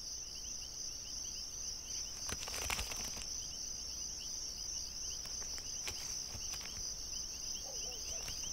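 Steady insect chorus, a continuous high chirring with a faster pulsing chirp beneath it, and a brief rustle about two and a half seconds in.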